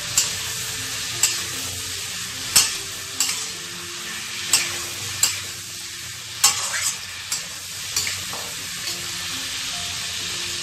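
Potatoes and drumstick pieces sizzling in hot mustard oil in a metal kadai. A spatula scrapes and clacks against the pan as they are stir-fried, with sharp knocks about once a second that stop near the end, leaving only the steady sizzle.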